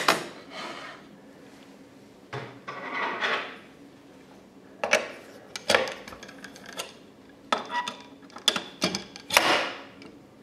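Metal clinks and scrapes from a router table's height-adjustment crank being fitted through the table plate and turned to raise the router bit. A short scrape comes about three seconds in, then a run of sharp clicks in the second half.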